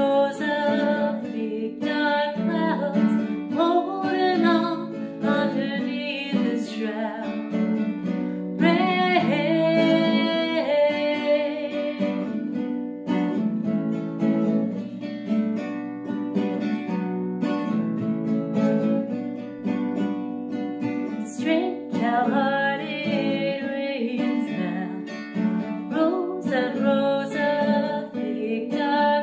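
A woman singing with her own classical guitar accompaniment. The nylon-string guitar plays chords under the voice, and for a stretch in the middle the voice drops out and the guitar carries on alone.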